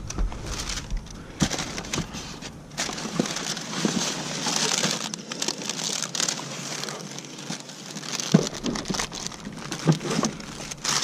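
Trash and debris being rummaged through: crinkling and crunching, with many short knocks and clatters.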